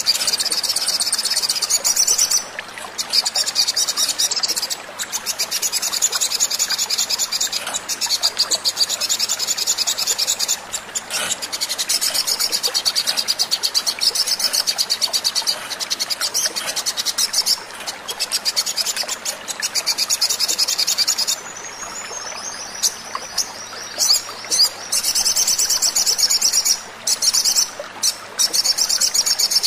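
Olive-backed sunbird song from a lure recording: long runs of rapid, high-pitched chirping notes with short breaks. About two-thirds of the way through there is a quieter stretch of falling notes.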